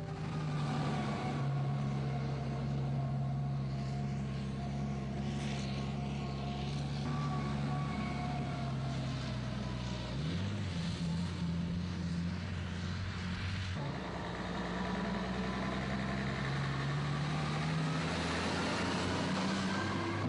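Diesel engines of heavy construction machinery running and working under load. The engine pitch rises about ten seconds in, and the sound changes abruptly near fourteen seconds.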